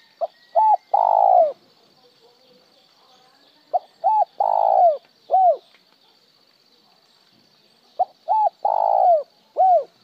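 Spotted dove cooing three phrases, each two quick short notes and then a long one. The first phrase stops there, plain. The second and third each end with a single extra trailing note after a short pause: the 'one tail note' call (một hậu), given only some of the time.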